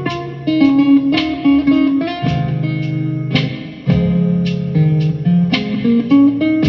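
Instrumental music led by a plucked guitar, single notes and chords ringing over a bass line in a slow, mellow groove.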